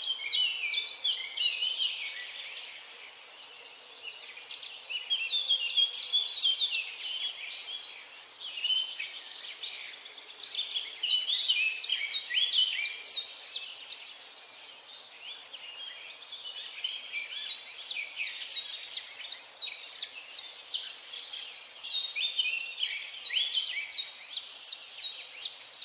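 Birds singing: phrases of rapid, high, down-slurred notes, each lasting two to four seconds, repeated about five times with short lulls between.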